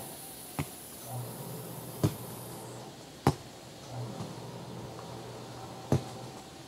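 Soccer ball kicked back and forth on grass: four sharp thumps, a second or more apart. A high steady buzz, like insects, cuts off about two and a half seconds in.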